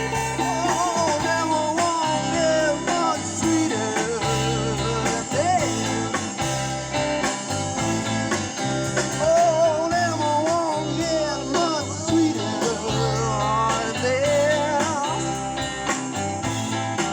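Live rock band playing: guitars and a bass line that steps between held low notes, with a lead melody that bends and wavers over the top.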